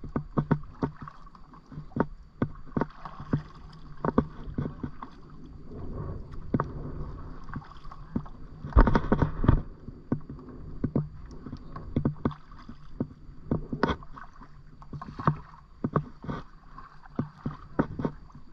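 Kayak being paddled: water splashing and dripping off the paddle, with many irregular clicks and knocks, and a louder knock and splash about nine seconds in.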